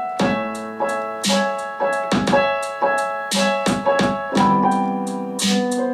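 Electric piano on a Roland Juno keyboard playing chords and short melodic figures, with sharp note attacks about every half second.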